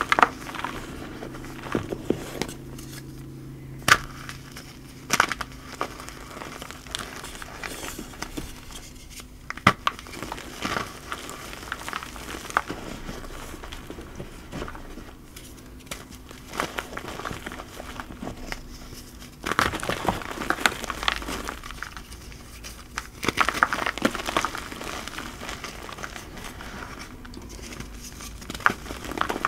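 Hands squeezing and pressing loose dyed cornstarch powder, giving a string of sharp, crunchy crackles that come thicker in two stretches after the middle. Near the end a soft pink cornstarch block is broken apart.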